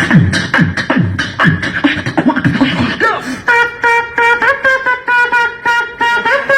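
Human beatboxing an electronic-dance beat: falling bass kicks and sharp snare clicks about twice a second, joined about three and a half seconds in by a buzzing synth-like lead tone that pulses and steps in pitch over the beat.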